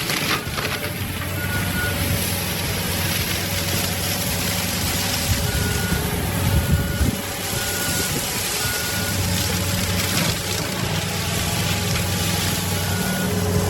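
Compact track loader's diesel engine running steadily under load, with its reversing alarm beeping in short repeated spells about halfway through and again near the end.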